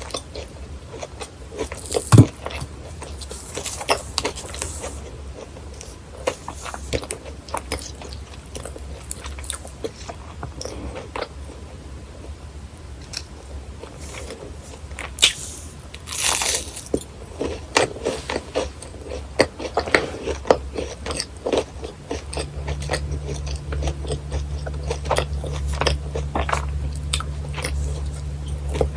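Close-miked crunchy bites and chewing of fried churros, irregular crisp snaps and crackles with one loud snap about two seconds in. A low steady hum comes in about three-quarters of the way through.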